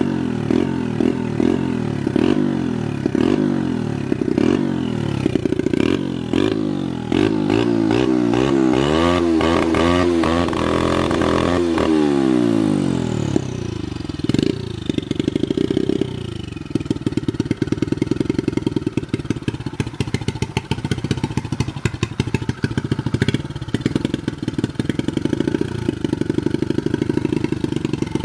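Turbocharged Loncin four-stroke pit bike engine revved by hand, its pitch rising and falling again and again, with a high whistle falling in pitch about halfway through. It is then held high against the rev limiter, which cuts the ignition in a rapid stutter.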